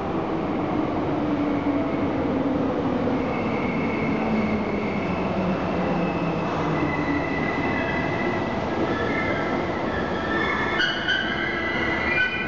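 Tokyo Metro 8000 series subway train pulling into an underground station and braking. Its running hum falls in pitch as it slows, under a high squeal from the wheels and brakes that grows sharper in the last couple of seconds as the train comes to a stop.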